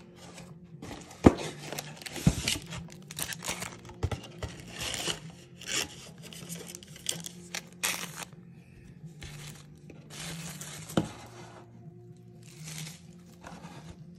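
Plastic wrapping on a trading-card box and packs being torn open and crinkled, in a run of ripping and crackling noises with a few sharp knocks, the loudest about a second in.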